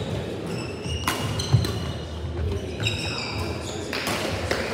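Badminton rally: rackets striking the shuttlecock with sharp cracks, two close together a little over a second in, and shoes squeaking on the court floor in short bursts.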